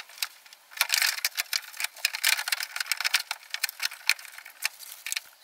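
Unbolted metal window regulator and its motor rattling and clicking against the inner sheet metal of a Mazda MX-5 (Eunos Roadster) door as they are worked by hand through the access hole. Irregular, quick clatter that starts about a second in.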